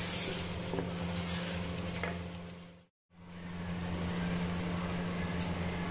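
A steady low mechanical hum over a soft even hiss, fading out to silence for a moment about halfway through and fading back in.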